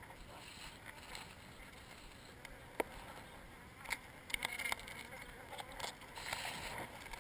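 Honey bees buzzing around an opened hive in a wall cavity. Over the buzzing, a metal scraper working honeycomb loose from the wood gives sharp clicks and scrapes: one about three seconds in, then a busy run of them from about four to seven seconds.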